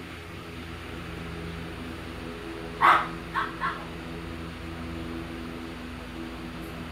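A dog barks three times: one loud bark, then two softer ones in quick succession, over a steady low hum.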